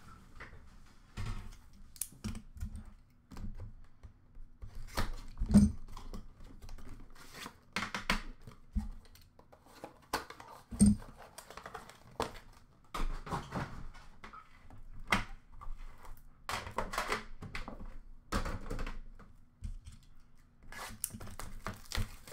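Hands handling trading-card boxes and a metal card tin: a string of clicks, taps and rustles of packaging, with two louder thunks about five and a half and eleven seconds in.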